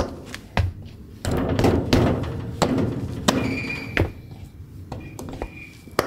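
Foot stepping on the parking-brake pedal of a metal grill caster with a solid rubber wheel, the brake locking and releasing with several sharp clicks and thunks.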